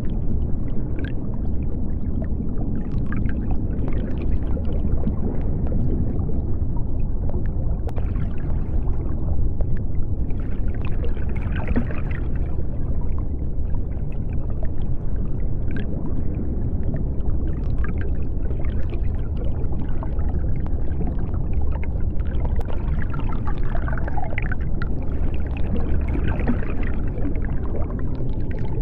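Underwater ambience: a steady deep rumble with faint bubbling and gurgling over it.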